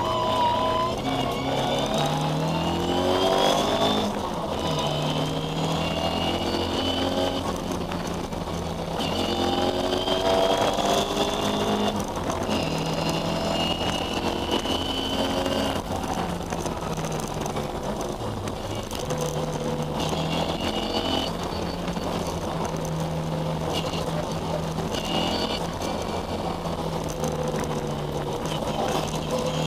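Engine of a historic Ford Escort rally car heard from inside the cabin at stage pace, climbing in pitch again and again as it pulls through the gears, dropping back at each gear change.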